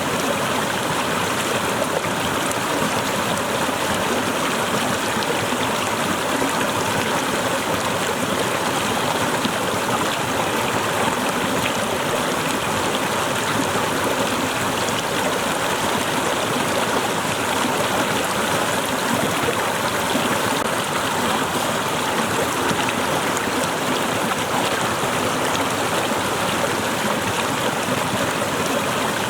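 Waterfall: water cascading and splashing over rocks in a steady, unbroken rush.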